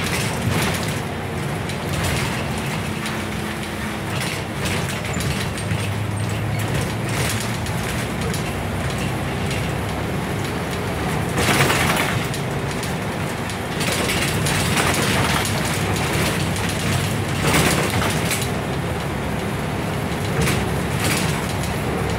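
Interior sound of a Scania N94UB single-decker bus under way: steady low engine and drivetrain running, with short knocks and rattles from the body and fittings every few seconds, the loudest about twelve and eighteen seconds in.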